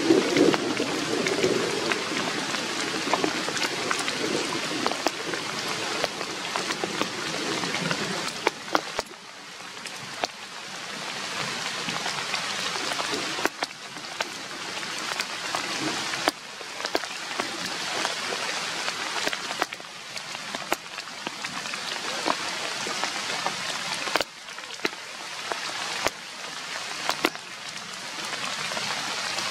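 Rain falling steadily on leaves and leaf litter, with many individual drops striking close by as sharp ticks.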